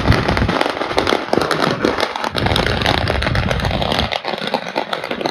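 Firecrackers going off in a continuous, rapid crackle of many small bangs.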